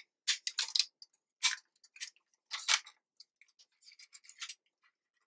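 Metal clicks and clacks from a GHK AKMS airsoft rifle being handled, its underfolding stock and safety lever being worked: several sharp clacks in the first three seconds, then lighter scraping and ticking.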